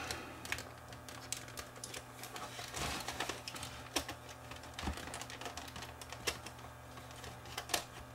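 Scattered light clicks and taps of a JVC camcorder's plastic viewfinder housing being handled and worked apart with a screwdriver, over a faint steady hum.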